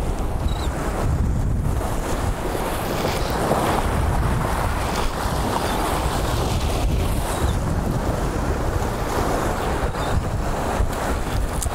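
Ocean surf washing steadily, with wind buffeting the microphone in a constant low rumble.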